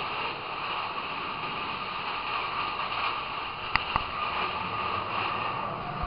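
Mine-train roller coaster running along its track: a steady rushing noise of wheels and air, with two sharp clicks close together about four seconds in.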